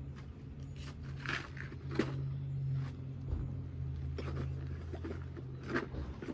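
Asphalt roof shingle scraping and rustling against the surrounding shingles as it is worked into place by hand, with a couple of sharp clicks, over a steady low hum.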